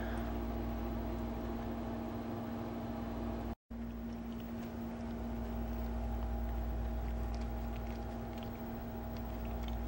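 A steady electrical hum with faint soft clicks and nibbling from a dog chewing at its own fur, itchy from allergies. The sound cuts out for a split second a little past a third of the way in.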